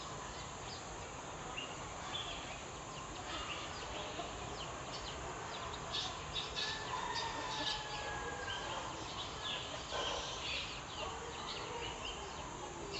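Outdoor ambience with birds chirping over and over, short high calls coming thick from a few seconds in, over a steady background hiss.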